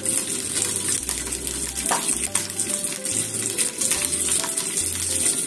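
Slices of ham frying in olive oil in a non-stick frying pan, a steady sizzle, under background music.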